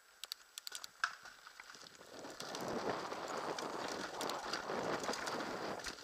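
Downhill mountain bike rolling down a dirt and gravel trail, heard from a helmet-mounted camera: a few sharp clicks in the first second, then from about two seconds in a steady crackling rush of knobby tyres on dirt and the bike rattling, growing louder as it picks up speed.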